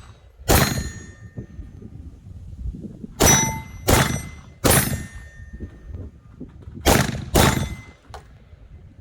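Pistol shots striking steel targets: six sharp hits, each leaving a brief metallic ring. One comes about half a second in, three close together around the middle, and two near the end.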